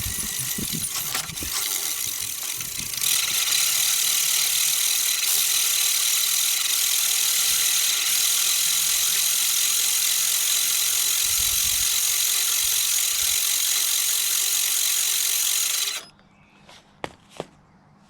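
Allett ten-blade mower cylinder spinning in reverse against the bottom blade with backlapping paste, a steady grinding rasp that grows louder a few seconds in and stops abruptly near the end. Two light clicks follow.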